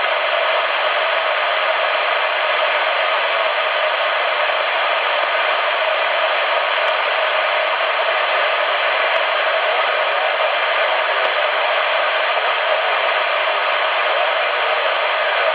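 Steady hiss of band noise from a CRT SS 9900 CB radio's speaker, tuned to 27.555 MHz in upper sideband with no station coming through.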